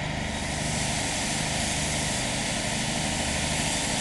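Fire engine running steadily, its low even drone typical of an engine driving the pump, with a steady hiss of hose spray and steam as water hits the hot car.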